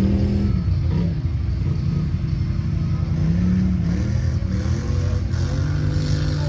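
Vehicle engine running, its pitch dipping and rising a few times as the revs change.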